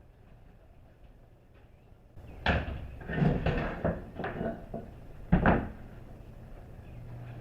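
A run of knocks and clattering thumps starting about two seconds in, with two louder knocks, the second near the end.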